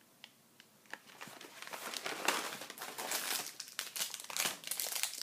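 A Bare Fruit cinnamon apple chips snack bag crinkling as it is handled, starting about a second in after a brief quiet moment, with irregular louder crackles.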